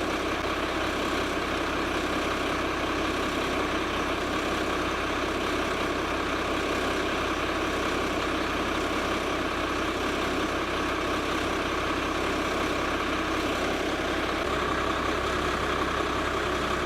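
An engine idling steadily, a continuous even running hum.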